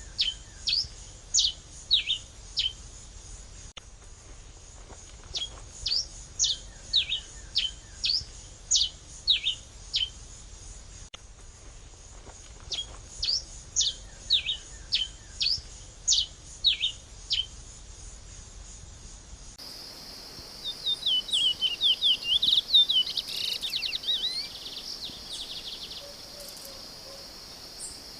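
A songbird singing phrases of sharp, high whistled notes, repeated every few seconds. About two-thirds of the way through, the recording cuts to another bird's fast run of twittering notes over a steady high insect buzz.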